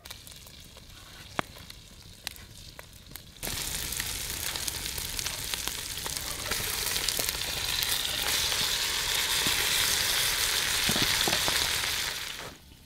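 Meat searing in hot butter in a cast-iron Dutch oven over a campfire. A few sharp clicks at first, then a loud sizzle starts suddenly about three and a half seconds in as the meat hits the fat, and it keeps up until it drops away near the end.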